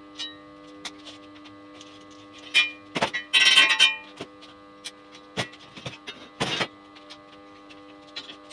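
Steel box-section frame being handled and shifted on a metal workbench: a run of sharp clanks and knocks, with a louder scraping clatter about three seconds in. A steady hum runs underneath.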